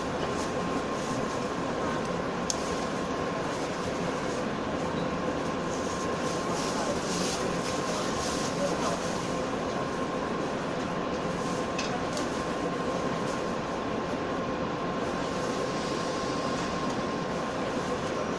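Inside a JR West 117-series electric train on the move: steady running noise with a faint constant hum, and a couple of short clicks from the track, about two and a half seconds in and again near twelve seconds.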